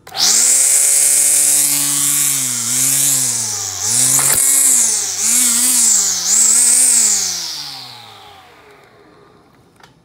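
Kobalt 40-volt second-generation cordless string trimmer's electric motor and line head spinning up suddenly to a high whine, speeding up and slowing several times as the trigger is eased, then winding down to a stop. A single sharp click about four seconds in. The head is held on with washers and a bolt in place of the missing bump knob.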